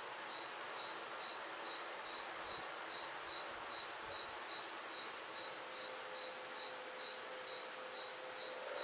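Insects chirping in the background: a steady high trill with a lower chirp repeating evenly a little over twice a second.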